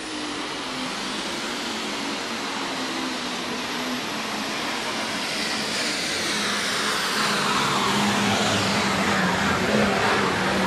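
International Harvester 1486 diesel super stock pulling tractor running at full power under load as it pulls the sled, with a constant high turbocharger whine over the engine noise. Over the second half a whistle falls steadily in pitch, and the sound grows louder toward the end.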